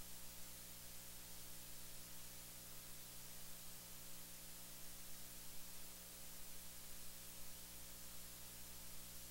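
Steady hiss with a low electrical hum: the noise floor of the recording's audio feed.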